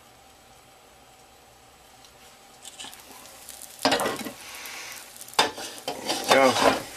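Egg white frying in a cast iron skillet, quiet under its glass lid at first. A little before halfway the lid comes off with a sharp clank, and the pan sizzles openly, with more metal-and-glass clattering near the end.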